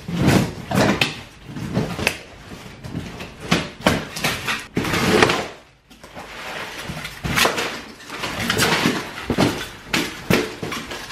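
A cardboard shipping box being torn open and its crumpled kraft packing paper and foam pulled out: a run of irregular tearing, scraping and rustling noises.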